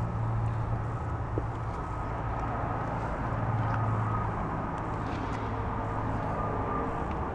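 Steady low mechanical hum with a faint, steady high whine over it and a few light ticks.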